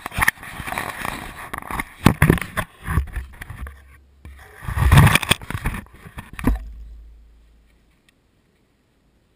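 Handling noise of a GoPro camera being set down and adjusted on a rock: irregular scrapes, rubbing and knocks close to the microphone, which stop suddenly about six and a half seconds in.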